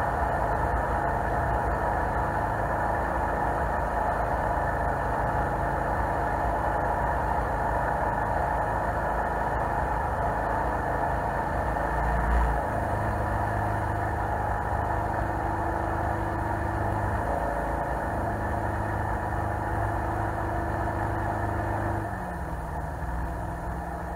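Jet boat engine running steadily under way, with water noise from the hull. About halfway through there is a brief low bump and the engine note shifts. About two seconds before the end the engine note drops and it gets quieter, as the boat is throttled back.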